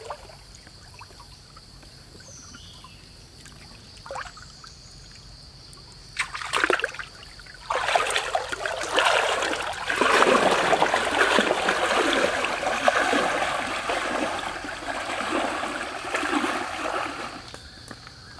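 Shallow stream water splashing and sloshing as a large fish is handled in it: a short splash about six seconds in, then about nine seconds of loud, continuous splashing that stops near the end.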